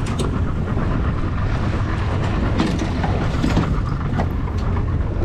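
Boat engine running steadily at trolling speed under wind and water noise, with scattered light clicks and knocks.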